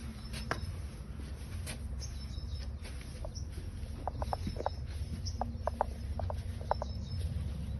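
Farmyard background: a steady low rumble with scattered short, high chirps, many of them in quick groups in the second half.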